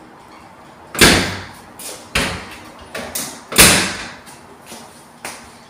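Door of a Speed Queen front-loading commercial dryer being slammed shut: two loud slams about two and a half seconds apart, with lighter knocks between and one near the end.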